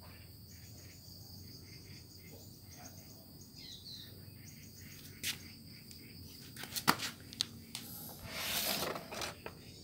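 Crickets chirring steadily at a high pitch, with a few sharp clicks about 5 and 7 seconds in and a short rustle between 8 and 9 seconds in.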